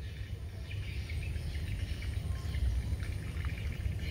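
Quiet pond-side ambience: faint, scattered high chirping over a steady low rumble.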